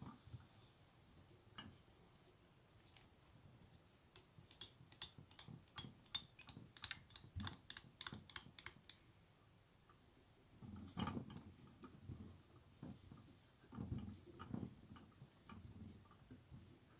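Light clicks and taps from handling fly-tying tools at a rotary vise: a quick run of sharp clicks, several a second, from about four to nine seconds in, then a few soft low knocks later on.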